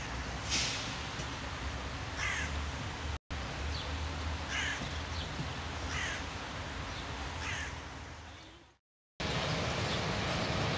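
Crows cawing repeatedly, a short harsh call every second or two, over a steady low rumble from a train on a distant track. Near the end the sound fades out, and after a brief gap a louder steady noise begins.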